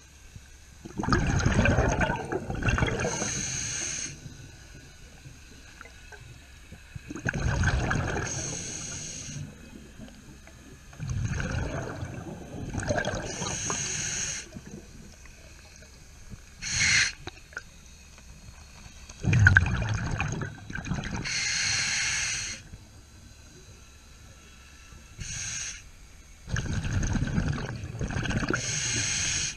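A scuba diver breathing through a regulator underwater, about five breaths: each is a bubbling rumble of exhaled air followed by a high hiss, with two short hisses in between.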